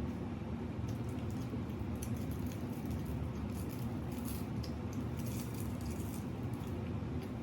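Close-up chewing and wet mouth sounds of a person eating, with short smacks and clicks scattered through the middle, over a steady low hum.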